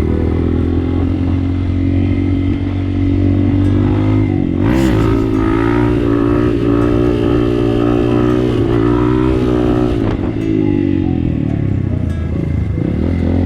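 Motorcycle engine running while riding, steady, with its pitch dropping and climbing again about five seconds in and once more near ten seconds.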